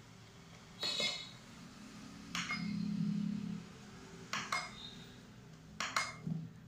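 Front-panel keys of a Contec CMS5100 patient monitor being pressed four times, about a second and a half apart. Each press is a short sharp click, some with a brief key beep.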